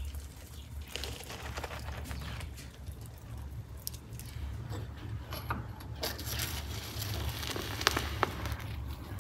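Crackling and ticking from a charcoal tandoor with whole chickens roasting over its embers, over a low steady rumble. A few sharp metal clicks come near the end as the skewered chickens are lifted out.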